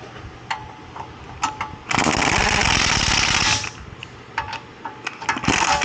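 Impact wrench hammering in two bursts, tightening the large axle nut on a newly fitted front wheel bearing hub until it is tight. A few light metallic clicks come before the first burst.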